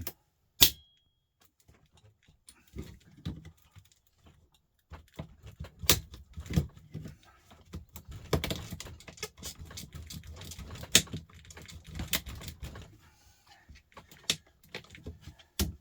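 Small metal and plastic clicking and rattling as a battery pack is taken apart by hand, with one sharp click and a brief ring about half a second in.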